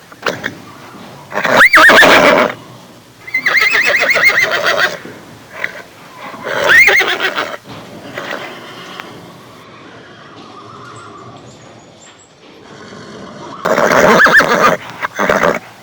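Horses neighing and whinnying: about four loud, shrill calls, each rising then falling away, with a quieter stretch in the middle.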